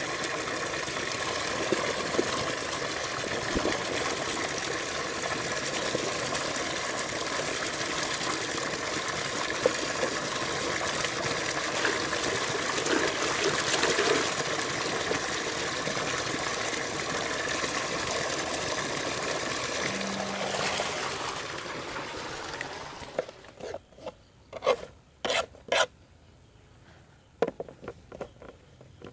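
Water gushing steadily from a pipe outlet and splashing into a steel pot while okra pods are washed by hand. The rush of water stops about 23 seconds in, leaving a quiet stretch with a few short knocks and clicks.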